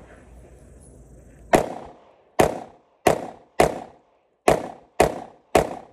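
Pistol fired in a rapid string: seven shots, the first about a second and a half in, then about one every half second to second, each with a short echo.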